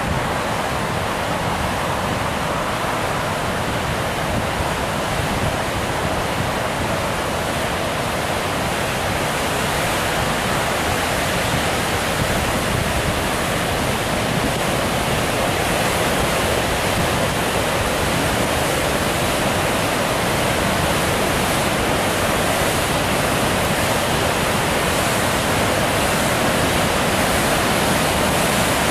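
Steady rush of river water pouring over a dam, growing gradually a little louder.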